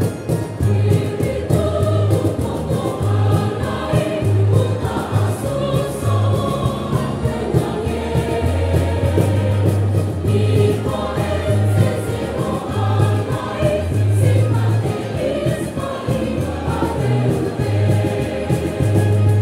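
A choir singing a hymn with instrumental accompaniment, low bass notes pulsing steadily underneath the voices.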